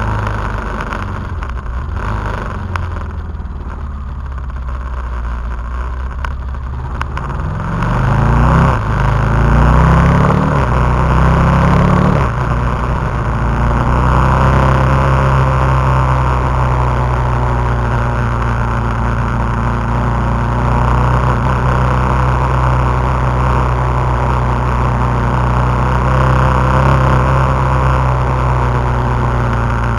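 KTM 990 SMT's V-twin engine heard from on board. It runs at low, even revs at first, then rises in pitch in a few quick sweeps through the gears from about eight to twelve seconds in. After that it pulls at a steady note under a rush of wind.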